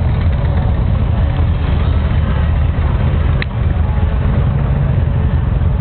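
Motorcycle engines idling with a steady low rumble, with a single short click about three and a half seconds in.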